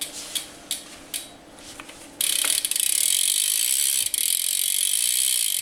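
Demolition Rogue cassette rear hub on a BMX bike, its pawls ratcheting as the rear wheel freewheels. There are a few separate clicks, then from about two seconds in a loud, fast, continuous buzz.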